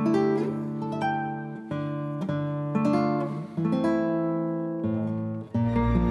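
Background music: an acoustic guitar plucking slow chords, each note ringing and fading. Near the end the music changes to a fuller piece with a deep bass.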